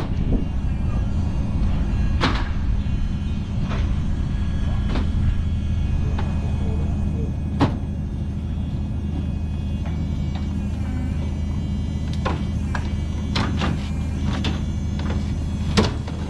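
An engine runs steadily with a low hum. Sharp knocks and clanks come every few seconds, more of them near the end.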